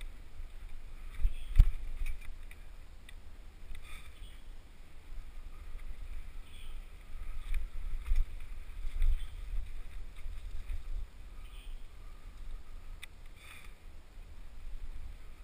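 Wind buffeting a helmet camera's microphone during a fast mountain-bike descent of a dirt trail, with scattered rattles and knocks from the bike going over bumps. A hard knock about a second and a half in is the loudest.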